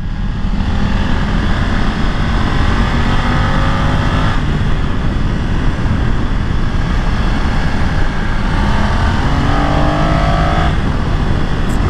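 BMW F 900 XR's parallel-twin engine pulling uphill, its revs climbing twice with a sudden drop at the end of each climb, as at an upshift. Steady wind rush runs under it.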